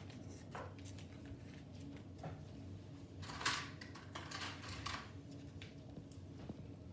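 Small clicks and handling noises of ration packets and utensils, with a brief crinkling burst of packaging about three seconds in.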